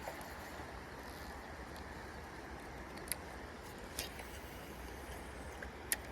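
A steady low outdoor rumble with three short, sharp clicks, about three seconds in, four seconds in and near the end.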